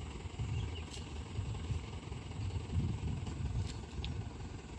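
Dump truck's diesel engine labouring at low revs as the truck tries to pull out of slippery mud: a low, uneven rumble that swells about three seconds in.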